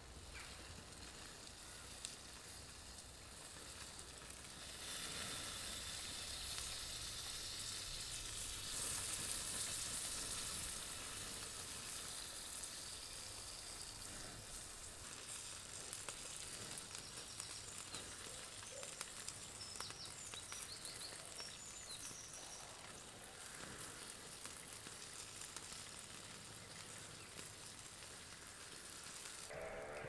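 Bacon sizzling as it fries in a small pan on a wood-fired camp stove, a steady crackling hiss. It swells from about five seconds in, is loudest around nine to eleven seconds, then settles to a lower steady sizzle.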